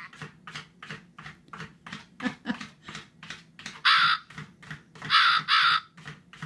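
Domestic cat meowing: one short call about four seconds in, then two in quick succession, over a faint, quick, regular ticking.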